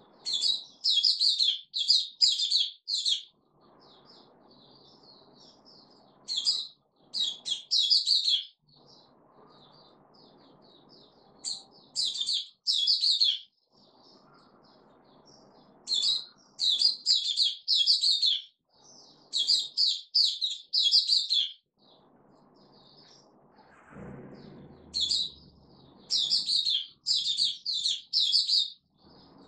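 Small caged songbird singing in runs of rapid, high-pitched chirps. Each run lasts about two seconds, with pauses of a few seconds between runs.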